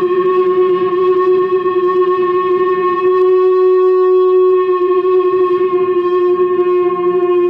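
Live experimental noise music: a steady electronic drone of two held tones, one low and one higher, with many overtones and no beat.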